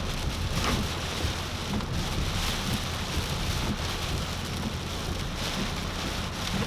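Heavy tropical-storm rain drumming steadily on a moving car, with gusty wind and a low road rumble, heard from inside the car.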